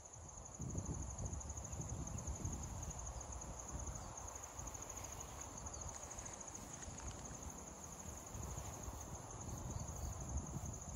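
Insects trilling steadily in a high, fast-pulsing chirr, over a low rushing noise.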